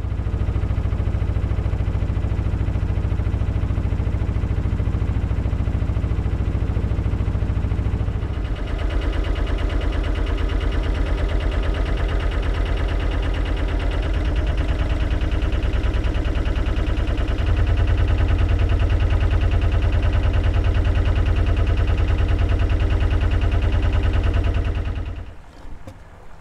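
Narrowboat's diesel engine running with a steady pulsing throb. It changes character about eight seconds in and grows louder about two-thirds of the way through, then drops away near the end.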